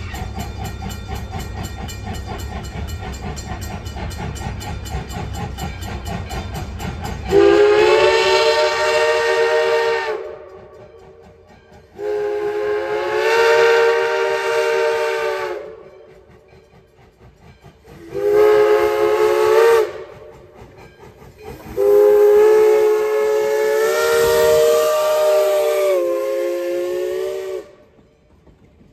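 Steam whistle of Baldwin 0-6-0 locomotive No. 58 blowing four blasts, long, long, short, long: the grade-crossing signal. Before the whistle, the approaching train gives a steady rumble.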